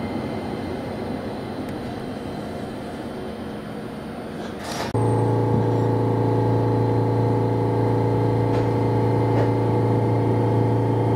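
Chikuho Electric Railway tram heard from inside the car: an even rumbling running noise. About five seconds in, it switches abruptly to a louder, steady hum with several fixed tones.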